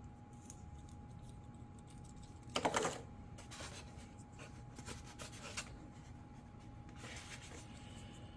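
Hands handling the RC plane's packaging and small landing gear parts: light rubbing and clicks with one short, louder rustle about two and a half seconds in. A faint steady hum runs underneath.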